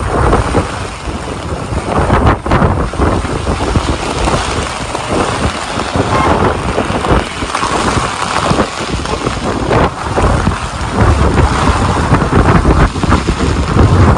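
Heavy rain pouring in a city street, with strong wind gusting against the microphone in a low, uneven rumble, over passing traffic.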